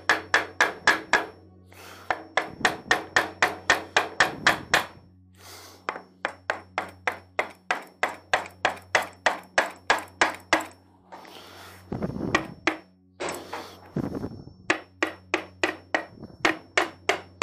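Rapid light hammer taps on the nose cone of an Eaton M90 supercharger, about five a second in runs of a few seconds with short pauses, to break the nose cone loose at its split line from the aluminium rotor case.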